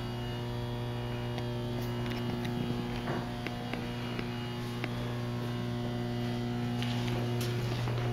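Steady low electrical hum with several even overtones, with a few faint clicks.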